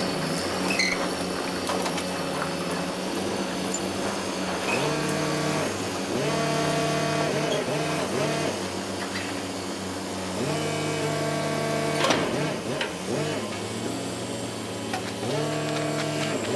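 Diesel engine of a container side-lifter truck running, its revs stepping up to a higher steady pitch and dropping back three times, as when driving the hydraulic lift arms. A single sharp clack about two-thirds through.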